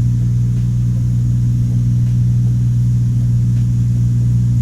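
Cessna 182's piston engine and propeller droning steadily in cruise, heard from inside the cabin as an even low hum.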